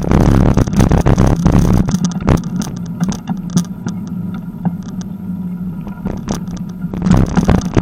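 Bicycle riding over a rough dirt road, heard from a camera on the moving bike: wind noise on the microphone and constant rattling and bumping. It eases to a steadier hum for a few seconds in the middle on a smoother paved stretch and turns rough again near the end.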